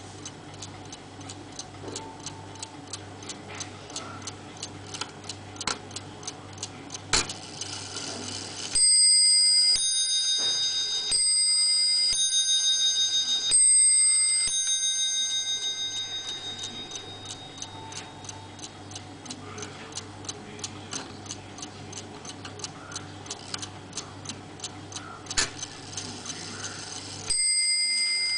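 Warmink bracket clock movement ticking steadily, then a click followed by six strikes alternating between its two bells of different pitch, each ringing on and fading after the last. Near the end another click comes and a new strike begins.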